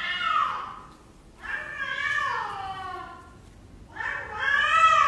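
A house cat meowing: three long, drawn-out yowls, each sliding down in pitch, with short pauses between them.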